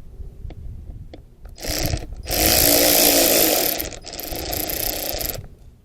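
Cordless drill-driver with a T20 Torx bit spinning out the screw holding the MAP sensor, running in two bursts with a brief stop about four seconds in.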